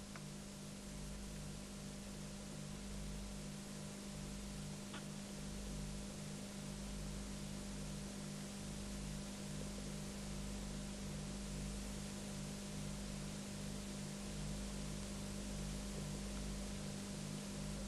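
Steady hiss and electrical hum of the recording, with a low hum that pulses evenly about two or three times a second; one faint click about five seconds in.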